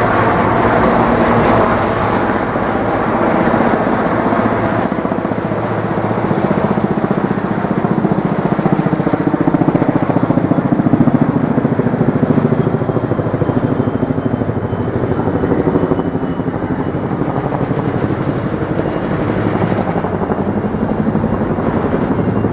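Helicopter flying past, its rotor beating steadily and loudest about halfway through.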